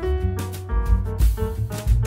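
Background music: an upbeat jazzy tune with piano, bass and drums.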